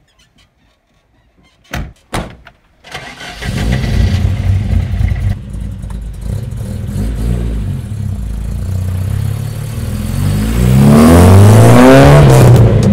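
An Opel Kadett GT/E's four-cylinder engine starting about three seconds in, just after two short thumps, and running steadily. Near the end it revs up in rising pitch, pulling away.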